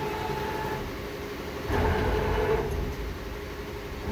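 CNC deburring and chamfering machine running with a steady mechanical hum and a few steady tones. A louder rushing noise lasts about a second near the middle as the servo arm brings its wheel brush in to the gear shaft.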